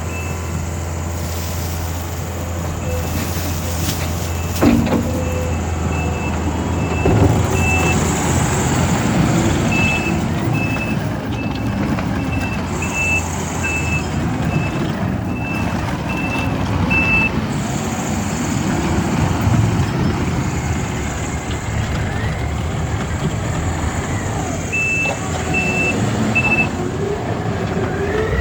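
Takeuchi TL12-R2 compact track loader's diesel engine running steadily, with its backup alarm sounding in several runs of beeps, a little over one beep a second, as the machine reverses. A couple of short knocks sound a few seconds in.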